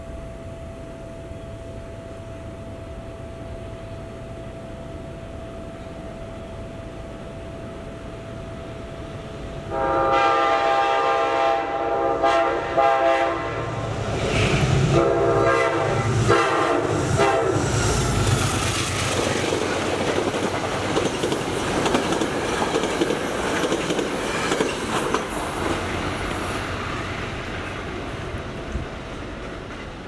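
Train air horn sounding a chord of several notes: one long blast about ten seconds in, then a few shorter blasts. The train then passes loudly, its noise slowly fading near the end.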